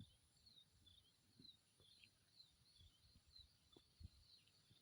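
Near silence: faint outdoor ambience with a small high chirp repeating about twice a second and a few soft low knocks.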